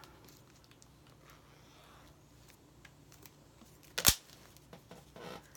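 Quiet handling of the packaging during an unboxing, with small ticks and one sharp click about four seconds in.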